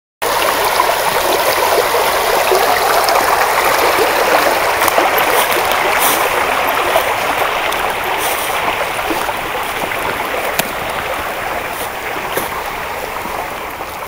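Small brook running over a shallow riffle: a steady rush and babble of flowing water that grows a little quieter toward the end.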